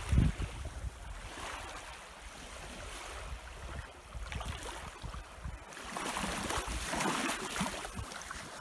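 Wind buffeting the microphone in low gusts, strongest right at the start, with small waves lapping on a sandy shore; a rushing hiss swells from about six seconds in.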